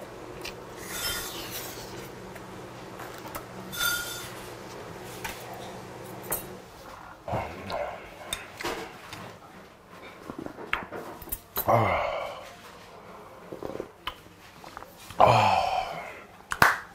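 Eating at the table: slurping spicy fish-stew broth from a spoon and bowl, with light clinks of spoon and chopsticks on the dishes. Twice, near twelve and fifteen seconds, a falling vocal 'aah' of exhaled breath, the second the loudest. A low steady hum stops about six seconds in.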